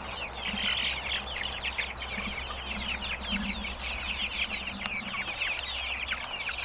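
A brood of baby chicks peeping continuously: many overlapping short, high, downward cheeps.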